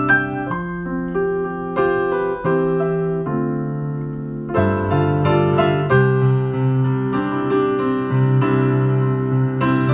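Solo piano playing a slow piece in sustained chords with a melody on top, sparser at first and fuller and louder from about halfway.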